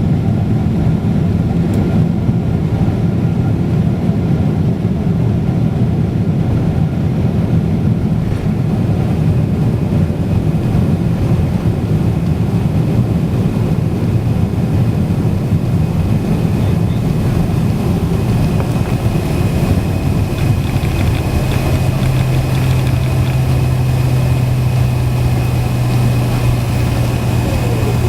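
Steady rumble of jet engines and airflow heard inside an airliner cabin as the plane rolls on the ground after landing. A steady low hum sets in about two-thirds of the way through.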